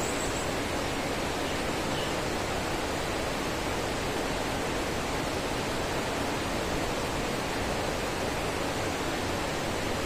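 Steady rush of a stream running full after afternoon rain, a constant even wash of water noise.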